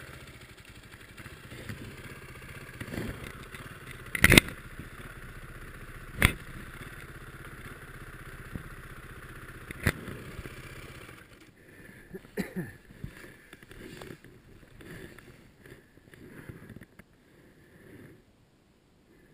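Single-cylinder four-stroke dirt-bike engine of a snowbike running at low revs, with three sharp knocks about 4, 6 and 10 seconds in. The engine sound stops about 11 seconds in, leaving scattered faint knocks and rustles.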